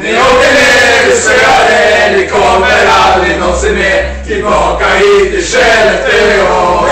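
A group of men singing a chant-like song together, loud and close, with several voices overlapping.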